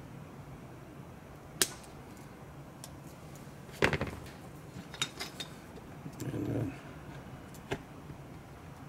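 A handful of separate sharp clicks and taps of small plastic parts and hand tools on a workbench cutting mat, the loudest about four seconds in, with a short soft rustle a little after six seconds.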